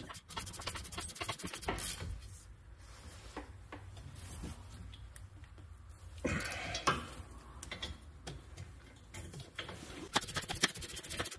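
Ratchet clicking in quick, even runs while tightening a rear brake caliper bolt, once for about the first two seconds and again near the end, with scattered knocks of tool handling in between.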